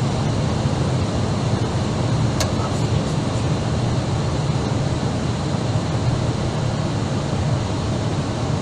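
Steady rushing noise of airflow and engines heard from inside an Airbus A319 in flight on approach, with a faint steady whine on top. A single faint click about two and a half seconds in.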